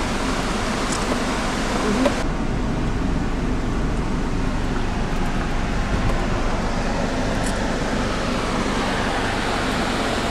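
Car driving on a rough gravel road: steady engine and tyre noise. A brighter hiss in the first two seconds cuts off abruptly, leaving a duller cabin rumble.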